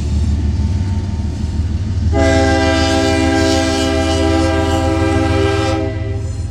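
BNSF freight locomotive's air horn sounding one long blast of about four seconds, a chord of several steady tones held at one pitch, starting about two seconds in. Under it runs the steady low rumble of the passing manifest train.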